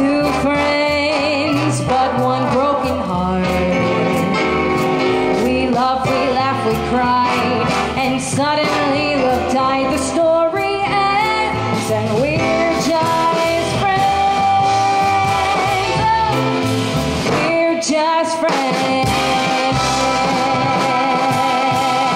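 Music: a song with a singer over a band with a steady drum beat.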